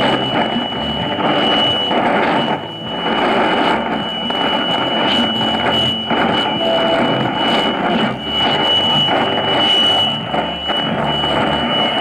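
Tecsun S-2000 shortwave receiver tuned to a weak tropical-band station on 4865 kHz, its audio mostly static hiss that rises and falls. A steady high whistle runs through it: the beat against the neighbouring station on 4862 kHz, 3 kHz away.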